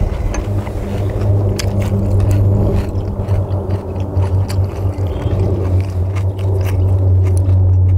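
Eating sounds at the table: chopsticks clicking against a cast-iron cauldron-lid griddle, lettuce wraps being folded, and chewing, in many short irregular clicks and crackles. A steady low hum runs underneath.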